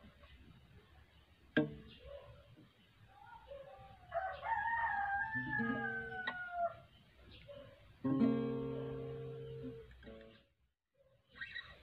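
Acoustic guitar: a few plucked notes about halfway through, then a major seventh chord strummed once about eight seconds in that rings for two seconds before cutting off. Under the plucked notes, a long call in the background falls in pitch.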